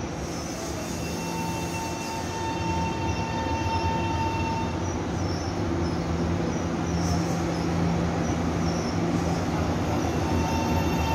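Taiwan Railway EMU700 electric multiple unit rolling along the platform, its running rumble growing louder as it nears, with steady high whining tones over it.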